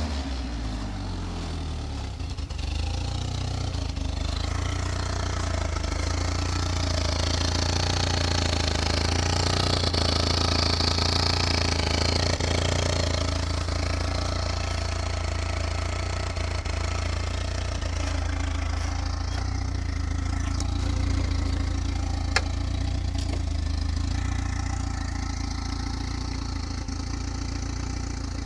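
Turbocharged car engine idling steadily, with a light rattle that the owner puts down to the turbo. A single sharp click sounds about three-quarters of the way through.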